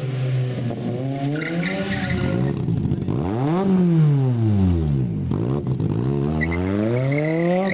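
Small rally hatchback's engine revving hard, its pitch climbing and dropping again and again, with short bursts of tyre squeal as the car slides.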